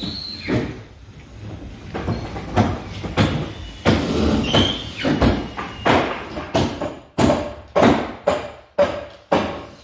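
Irregular series of knocks and bangs from renovation work, about one or two a second, echoing in a large room.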